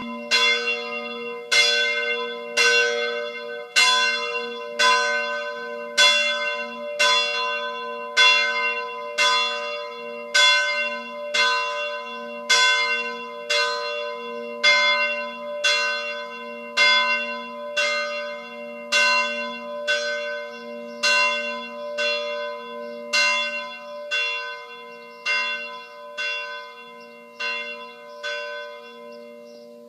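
A church bell in a bell tower, tolled with even strokes about once a second and the same ringing tone each time over a lingering hum; the strokes grow fainter over the last few seconds.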